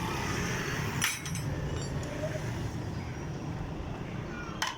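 Steady traffic rumble, with two sharp clicks or knocks: one about a second in and one near the end.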